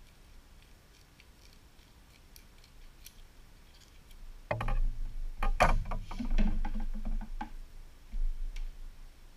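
Faint small snips of scissors cutting a strip of Velcro, then background music with a beat comes in about four and a half seconds in and is the loudest sound.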